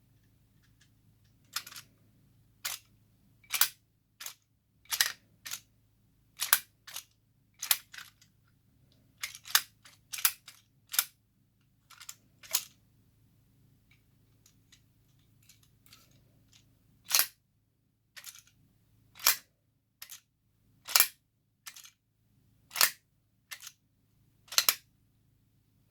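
Sharp plastic clicks and snaps of a candy-holder fidget toy's spring mechanism being worked, about two dozen at irregular intervals of roughly a second, some in quick pairs.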